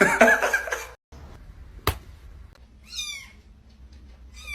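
Cat meowing: a loud, wavering cry at the start, then two short, high meows that fall in pitch, about three seconds in and near the end. A single sharp click comes between them.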